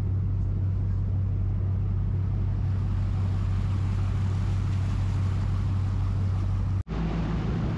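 Party boat's engine running steadily underway, a low drone. It cuts out for an instant about seven seconds in and comes back at a slightly higher pitch.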